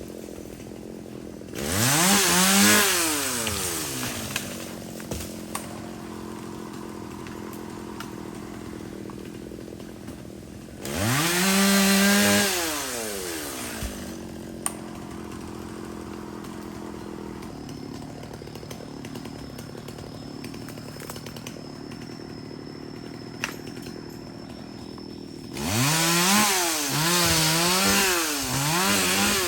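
Chainsaw engine idling, revved up three times: once near the start, again about a third of the way in, and in a series of quick up-and-down revs near the end.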